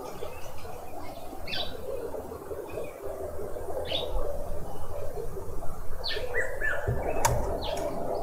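Wild garden birds calling: a few short, sharply falling chirps every second or two, with a couple of brief level notes and clicks near the end, over steady background noise.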